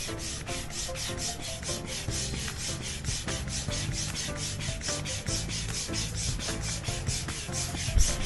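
Background music with a fast, even, scratchy beat of about five hits a second over held notes and a bass line.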